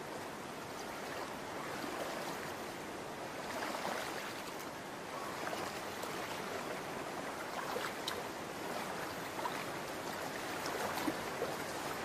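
Shallow water running steadily, an even rushing wash with a few faint ticks.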